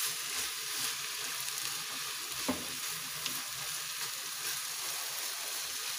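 Onion, carrot and pepper sizzling steadily in a frying pan while a wooden spatula stirs them, with a light knock about two and a half seconds in.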